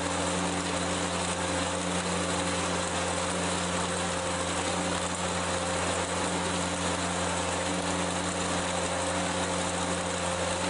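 Compact concrete mixer-pump running steadily at constant speed: an even engine hum over a wash of machine noise.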